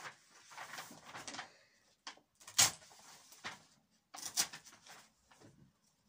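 Handling noises: a sheet of paper rustling and being moved about, with a sharp knock or crackle about two and a half seconds in and another about four and a half seconds in.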